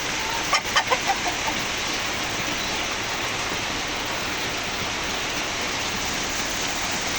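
Steady rain falling, with a chicken clucking in a quick run of five or six notes about half a second in.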